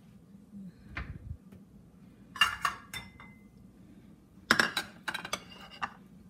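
Frying pan clinking and knocking against metal as it is handled and tilted to pour off excess oil: a pair of sharp clinks about two and a half seconds in, then a quick run of louder clinks and knocks from about four and a half seconds in.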